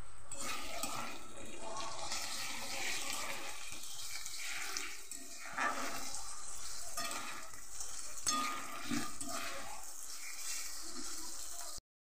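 Onions and ginger-garlic paste sizzling in hot oil in an aluminium kadai, stirred with a metal spatula that scrapes against the pan. The sound cuts off abruptly to silence near the end.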